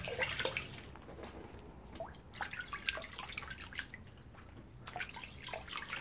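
Hands being rinsed in a plastic bucket of water: irregular splashes and drips as water runs off the fingers back into the bucket, washing off soap and diesel soot.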